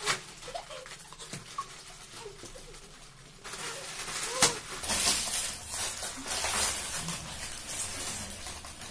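Crinkling and rustling of Lay's potato chip packets being torn open and handled, with chips being crunched. It gets louder about a third of the way in, with one sharp snap of a packet near the middle.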